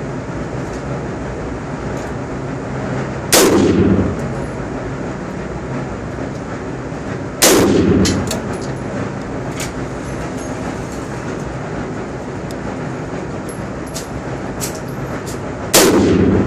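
Three single shots from an AR-15 rifle in .223, about four and then about eight seconds apart, each ringing out in the reverberant indoor range. A few fainter sharp clicks fall between them, over a steady rushing background noise.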